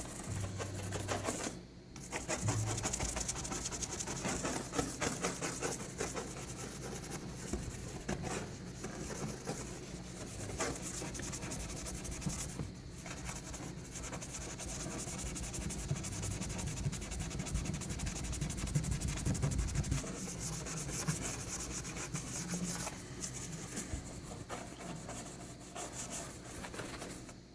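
Steady, rapid rubbing strokes on a car's painted panel, as a paint scuff is scrubbed off with a baking soda and water paste.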